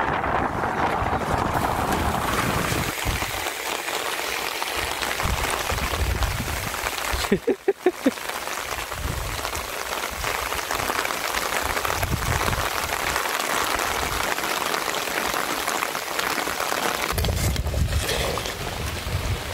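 Steady hiss of light rain falling, with gusts of wind rumbling on the microphone off and on.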